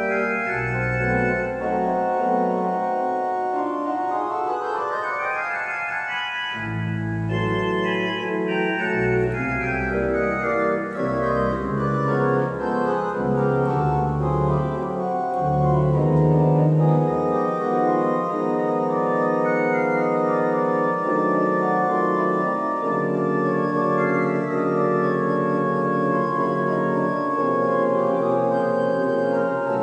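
Kney/Gober pipe organ playing sustained chords and melodic lines, with a rising run of notes about four to six seconds in. The deep pedal bass drops out for a few seconds near the start and again after about seventeen seconds.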